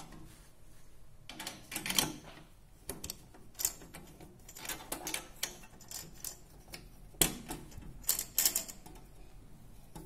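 Irregular small clicks and clacks of metal and plastic parts on a Dhona single-pan mechanical balance, as its knobs are fitted and the weight-loading levers inside are handled.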